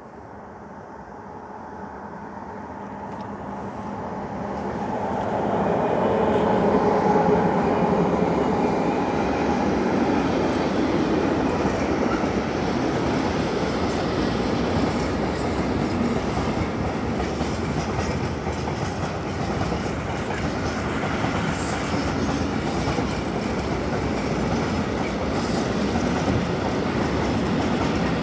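A freight train approaches behind an ASEA-built electric locomotive and runs past, growing louder over the first six seconds. A steady rumble of SŽ Eas open freight wagons rolling by follows, with the clickety-clack of wheels over rail joints.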